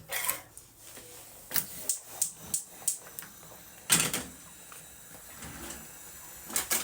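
Kitchen handling sounds at a cooker: scattered light clicks and knocks of a pot and utensils being handled, with one sharper knock about four seconds in.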